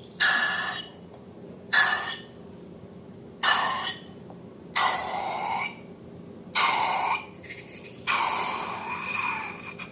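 Slime and air squeezed out of a balloon's neck in six short hissing squirts, each with a faint squeal and separated by short pauses.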